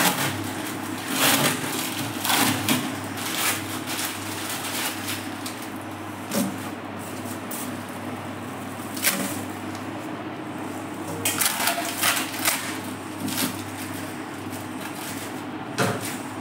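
Scattered knocks, taps and rustles from hands working inside a wall-mounted modular cabinet, coming at irregular intervals over a steady low hum.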